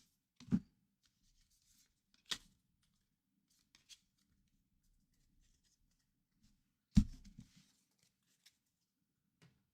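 A few scattered knocks of trading cards and card boxes being handled on a table: a soft thud, a sharp click, and a louder thump about seven seconds in followed by a few small taps.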